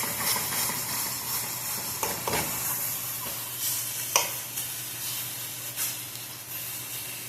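Frozen chicken breast sizzling steadily in a hot pot while it is worked with a utensil, with a few sharp knocks of the utensil against the pan, the sharpest about four seconds in.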